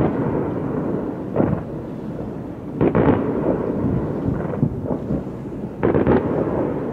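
Fireworks shells bursting: a run of booms, some in quick pairs, coming every one to three seconds, each trailing off in a low rumble.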